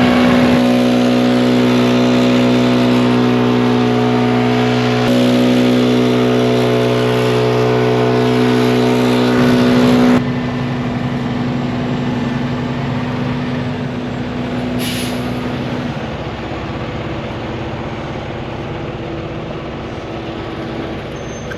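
An engine running steadily at constant speed, dropping in level about ten seconds in and continuing more quietly.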